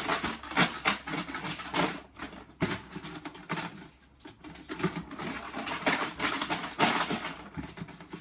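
Numbered draw tokens rattling and clicking together as their container is shaken to mix them before a pick, a dense irregular clatter that stops just after the end.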